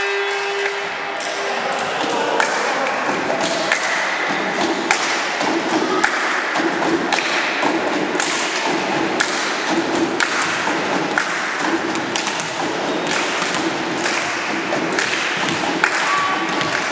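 Spectators in a gym keeping a steady beat, about two strikes a second, over a background of voices.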